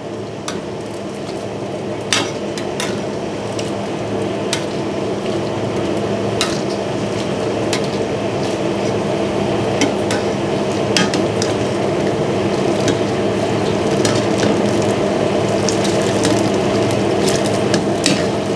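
A wok of water at a hard boil over a gas burner, giving a steady bubbling rush as mixed vegetables blanch in a perforated strainer basket. Scattered sharp metal clicks come from the ladle knocking against the strainer and the wok.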